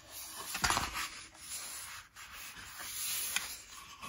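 Handling noise: rubbing and scraping with several light knocks.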